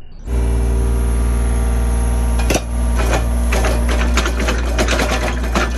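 Mini excavator's diesel engine running steadily while its hydraulic auger drills a pier hole. Irregular clicking and clattering join in from about two and a half seconds in.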